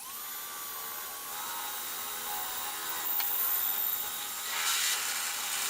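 Electric drill boring a hole through the grill's metal part for a rivet. The motor spins up at the start, runs steadily, gets louder about three seconds in and again near the end as the bit cuts, then stops abruptly.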